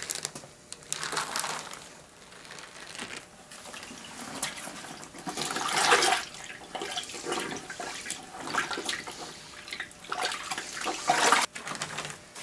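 A tanned deer hide being swished and sloshed by hand in a bucket of water, with irregular splashes and trickling, as the excess tanning oil is rinsed out.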